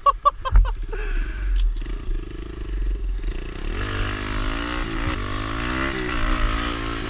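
Kawasaki KLX110 pit bike's small single-cylinder four-stroke engine running low, then revving up as the bike pulls away from about three seconds in, its pitch rising and falling with the throttle.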